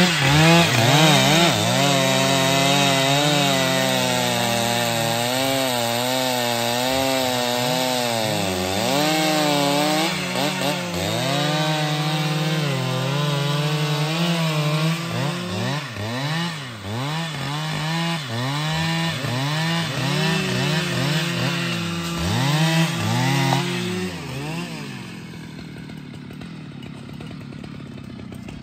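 Stihl MS 881 two-stroke chainsaw revving up and cutting through a thick log at full throttle, its pitch wavering under load in the wood. About 24 seconds in, the cut finishes and the saw drops off the throttle, running quieter.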